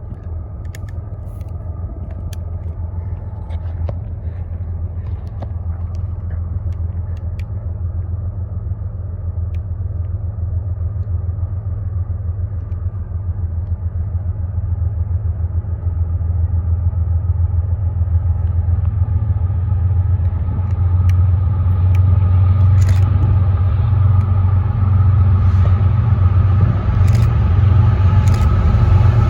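Diesel locomotive engine rumbling as a train approaches, growing steadily louder, with its higher sound coming in toward the end.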